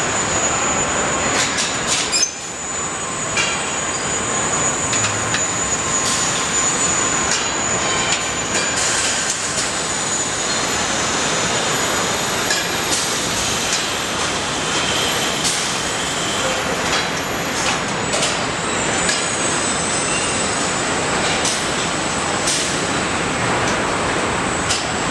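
Truck assembly-line machinery: a steady din of conveyors and equipment with a high-pitched whine, scattered clanks and knocks, and one sharp clank about two seconds in.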